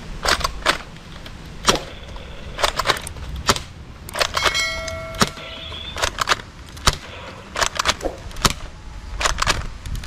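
Shell-ejecting toy blaster shooting soft darts, a red M16-style gun: a run of sharp snapping shots, one or two a second and unevenly spaced. About four seconds in, a ringing ding lasts about a second, as a target is hit.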